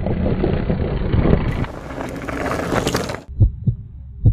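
A rough rushing noise with scattered crackles cuts off abruptly about three seconds in. A heartbeat sound effect follows: low double thumps, lub-dub, under a faint hum.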